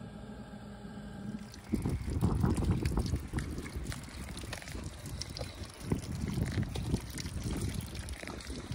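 A steady low hum, then about a second and a half in a louder run of crunching, rustling and clicking: footsteps and handling noise as the camera is carried over ground littered with bark and wood chips.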